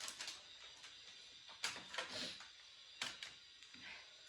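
Sounds of people eating: a handful of short clicks and smacks at irregular intervals, several clustered in the middle.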